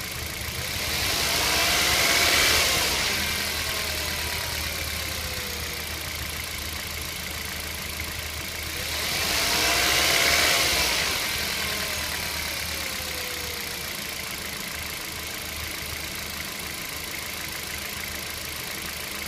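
Kia Rio engine idling steadily, with two louder swells that rise and fall about two and ten seconds in. It was recorded to show an extraneous noise the owner is hearing from the car.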